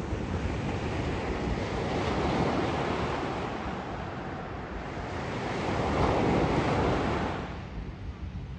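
Small surf waves washing up a sandy beach and running back, with wind buffeting the microphone. The wash swells louder about two seconds and six seconds in, then eases off near the end.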